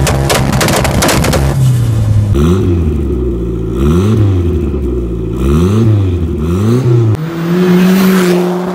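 Car engine revving: crackling and popping at first, then the revs rise and fall about four times before holding steady at a higher pitch.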